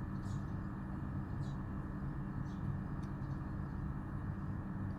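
Steady low hum, with three faint, brief high-pitched sounds about a second apart.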